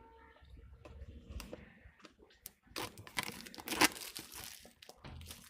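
The seal on a smartphone's retail box being torn open by hand, with packaging crinkling. After a quiet start with a few small clicks, a loud stretch of tearing and crackling comes a little before the middle, then it settles back to light handling noises.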